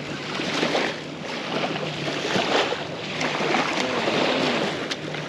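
Shallow seawater washing and sloshing at the shoreline: a steady hiss that swells and eases every second or so.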